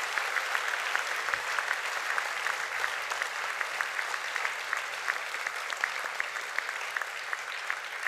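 Audience applauding steadily, a dense patter of many people clapping that fades slightly near the end.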